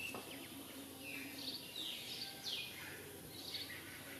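Birds calling: a quick series of short whistled notes, each sliding downward, about two or three a second. Under them runs a steady high hiss of outdoor ambience.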